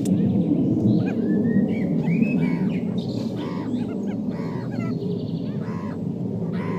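Young meerkats squeaking: short high chirps and squeaks repeated many times, over a steady low rumble of background noise.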